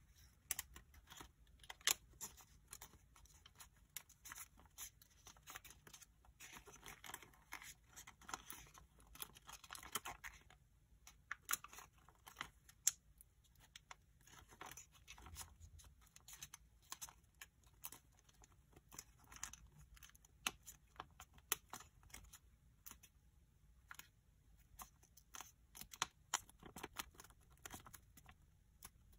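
Origami paper being folded by hand: quiet crinkling and sharp crackles as the sheet is creased and pressed flat, with a busier stretch of rustling from about seven to ten seconds in.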